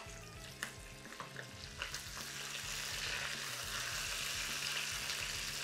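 Pork sausages sizzling as they brown in hot oil in a pot, the sizzle growing louder about two seconds in. A few light clicks come from a spatula stirring them against the pot in the first two seconds.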